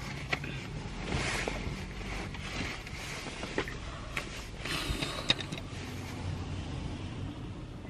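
Rustling and handling noise as a metal water bottle is picked up and opened, with a few light clicks and knocks of the bottle and its cap, most of them about halfway through.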